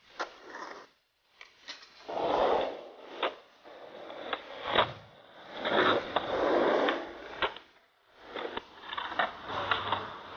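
Skateboard wheels rolling over the ground in swells of a few seconds, with several sharp clacks of the board striking the ground.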